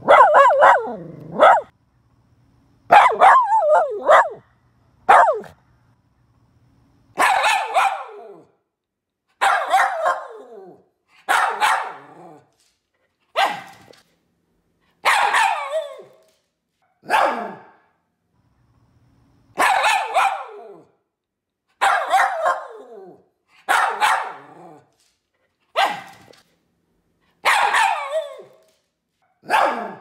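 Poodle barking in single barks and short clusters, roughly one every two seconds, each falling in pitch, with silence between them.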